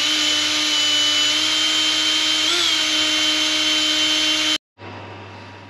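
Cordless drill running at a steady speed, drilling into the aluminium angle strip on top of the fridge: a steady whine that rises a little in pitch partway through. It cuts off suddenly a little past four seconds, leaving a low hum.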